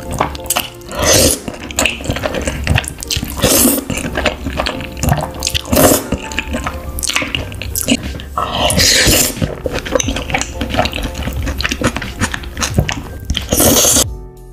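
A person slurping and eating pasta noodles close to the microphone, with several loud wet slurps a couple of seconds apart.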